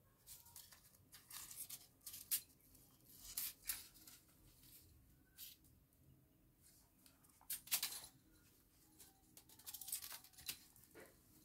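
Crumpled paper ball crinkling and rustling in short, irregular bursts as a kitten bites and bats at it.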